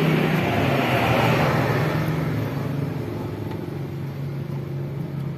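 Steady low engine hum, with a louder rush of noise that fades away over the first two seconds.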